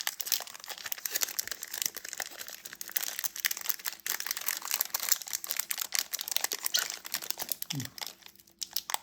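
Foil booster pack wrapper crinkling and being torn open by hand, a dense run of crackles that thins out near the end; the old wrapper tears cleanly.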